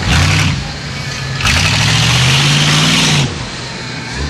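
Pickup truck engine revving hard while driving off-road through tall grass. There is a short surge right at the start, then a longer one from about a second and a half in, where the pitch climbs a little before the engine drops back near the end.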